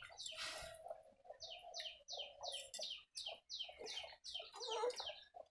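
A bird chirping over and over: short, high, falling chirps at about three a second, starting about a second in and stopping near the end.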